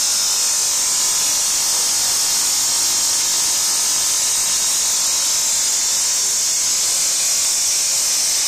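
Electric hydraulic pump unit of a Plarad hydraulic torque wrench running steadily, a constant high-pitched motor hiss.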